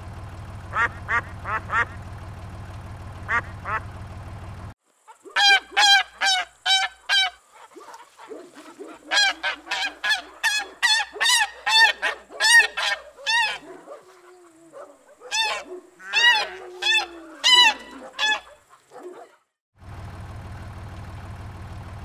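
A flock of domestic geese honking again and again in loud runs, with lower gabbling notes between the honks. At the start and again near the end, a steady low tractor-engine hum runs under a few short honks.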